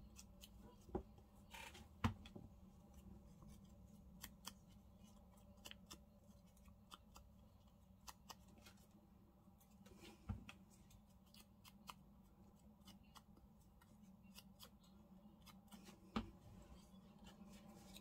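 Quiet crafting sounds: faint scattered taps and clicks of an ink pad being dabbed and rubbed around the edges of paper journal cards. A few louder knocks come about one, two, ten and sixteen seconds in, over a faint low hum.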